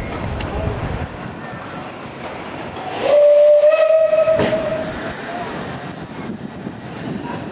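Steam locomotive whistle blown once: a single loud, held note about a second and a half long, starting a little before the middle, with its pitch rising slightly. It sounds over steady background noise.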